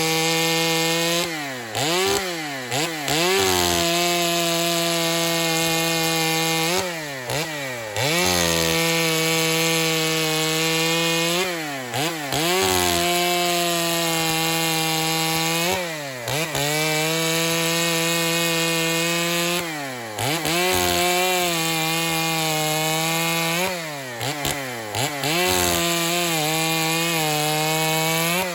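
A Stihl 025 two-stroke chainsaw with a freshly sharpened chain making test cuts in wood. It holds a steady high full-throttle note for several seconds, then drops back briefly and revs up again, about six times.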